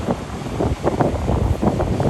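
Diesel engine of a heavy earthmoving machine running, heard through wind buffeting the microphone in uneven gusts.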